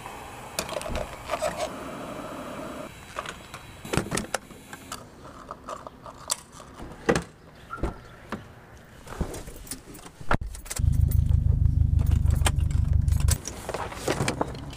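Clicks, knocks and key jangling from handling a fuel pump nozzle at a car's filler and from unlocking and opening a car door. A little past the middle, a loud low rumble lasts about two and a half seconds, followed by more clatter near the end.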